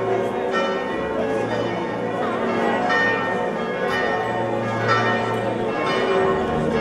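Church bells pealing, with strokes about once a second and their ringing tones overlapping.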